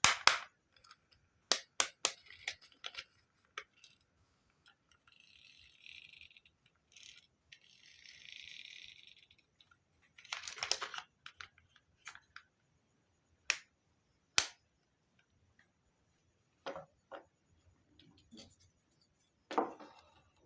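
Marbles running down a HABA wooden marble run: sharp clicks and knocks as they drop and strike the track, with a stretch of softer rolling about five to nine seconds in.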